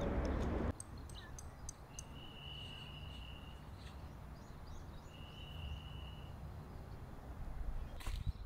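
Quiet outdoor ambience with birds chirping: a few short high chirps and two long, steady high whistles about three seconds apart, over a low background hum. Louder knocks start near the end.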